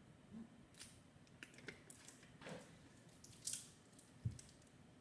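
Faint, scattered soft squishes and small clicks of barbecue sauce being squeezed and spread over ribs in a foil-lined pan, with a slightly louder one about three and a half seconds in and a low thud just after four seconds.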